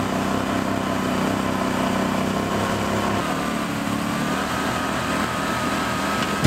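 A boat's outboard motor running steadily, with a thin wavering whine over it in the second half.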